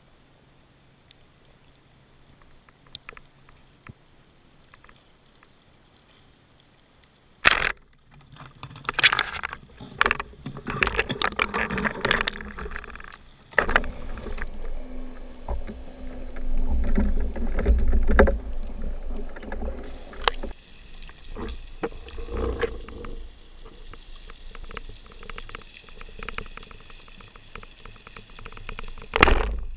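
Underwater sound picked up by a spearfisher's camera. At first it is quiet with faint scattered clicks. About seven and a half seconds in comes a sharp knock, and after it a long irregular stretch of knocks, low rumbling and churning water noise.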